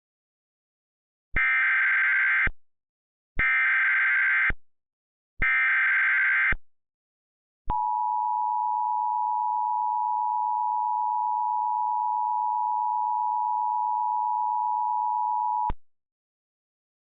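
Emergency Alert System tones. First come three identical bursts of the SAME digital header, each a harsh warbling screech about a second long. Then the two-tone attention signal holds steady for about eight seconds. Together they open an emergency alert, here a tornado warning.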